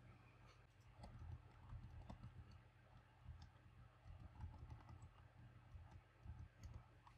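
Faint typing on a computer keyboard: irregular keystrokes, a few a second.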